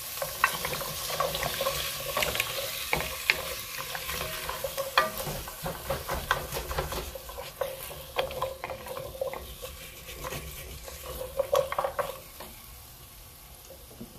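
Wooden spoon stirring baby carrots in a hot enameled cast-iron Dutch oven, with irregular scrapes and knocks against the pot over the sizzle of the chicken's pan juices. The stirring eases off near the end.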